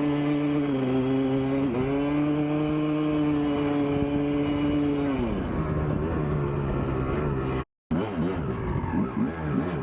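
1999 Kawasaki KX250's single-cylinder two-stroke engine running at steady high revs, with a short dip about two seconds in, then the revs fall away around five seconds in. After a brief gap in the sound, the engine is revved up and down in quick blips.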